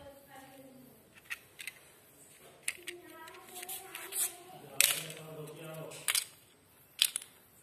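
Plastic pieces of a broken TV remote clicking and knocking as they are handled and picked up from a tiled floor: a series of sharp, irregular clicks, the loudest about five and seven seconds in.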